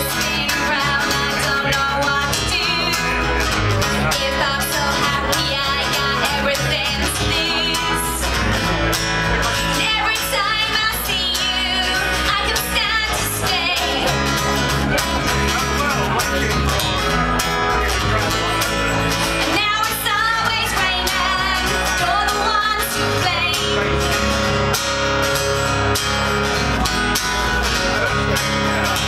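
Live band music: a strummed acoustic guitar and a bass guitar playing a rock song, with singing in stretches.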